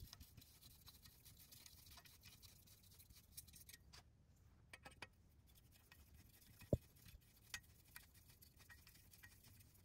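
Near silence with faint, scattered clicks and light scraping of small metal parts being handled, as a hex key drives screws into the CNC rail's mounting clip; one sharper click about two-thirds of the way through.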